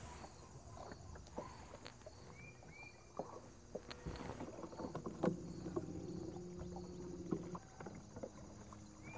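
Small boat on open water: faint water movement against the hull with scattered light knocks and clicks. About halfway through, a steady low hum sets in for a couple of seconds.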